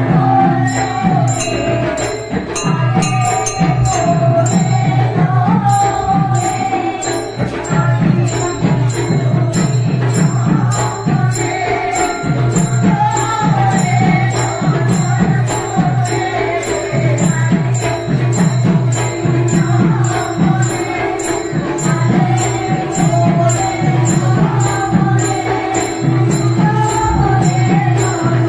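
Manipuri devotional ritual music: hand cymbals clashing in a steady beat over repeated drum strokes, with a wavering melody line running above the drums.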